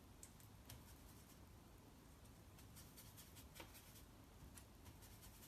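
Near silence with faint, scattered scratches of a large paintbrush stroking watercolour paper.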